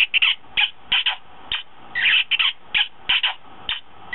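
Electronic plush lips dog toy playing a string of recorded kissing smacks, about a dozen short kisses in quick succession.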